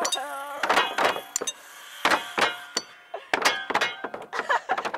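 Several hammers driving nails into wooden roof decking: many sharp, irregular, overlapping blows.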